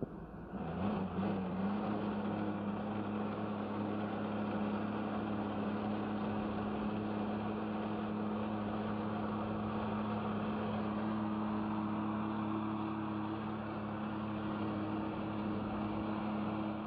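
Jet ski engine powering a flyboard through its hose: it revs up about a second in, then runs steadily at high revs with a steady hiss behind it.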